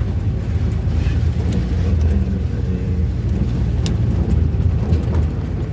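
Vehicle engine and road rumble heard from inside the cab while driving, a steady low drone.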